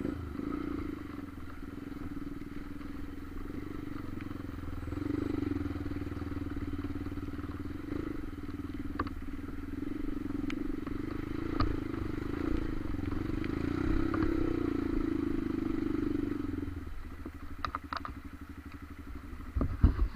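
Honda CRF trail motorcycle's single-cylinder engine running steadily under way, quietening about three-quarters of the way through. A few sharp clicks near the end.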